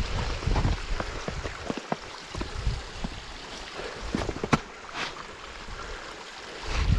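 Wind buffeting the microphone, easing after the first second to a steady rushing hiss with scattered sharp clicks, then gusting again just before the end.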